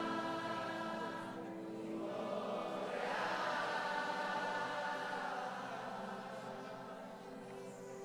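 A large congregation singing a slow worship chorus with a live band, in long held notes. A fuller swell of many voices comes in about three seconds in and then slowly fades.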